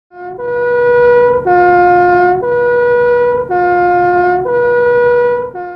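Two-tone fire-truck siren horn sounding a hi-lo pattern, switching between its two notes about once a second.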